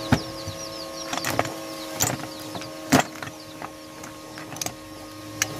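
Scattered sharp metal clicks and knocks, about half a dozen, as an electric drill's keyed chuck and loose metal parts are handled, over a steady hum.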